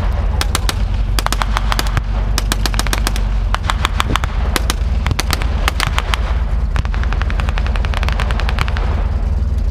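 Reenactment blank gunfire in rapid bursts of automatic fire mixed with rifle shots, over the steady low rumble of idling tank and armoured-vehicle engines.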